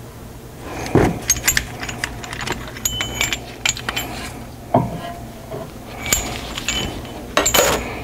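Metal clinking and clanking as a screw-type caliper piston tool is taken off a rear brake caliper and handled. A sharp knock comes about a second in, followed by scattered clinks, some of them ringing briefly.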